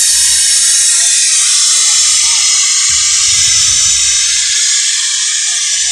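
A giant parade sound-system truck (sound horeg) playing at high volume: deep bass thumps come and go under a loud, harsh hiss.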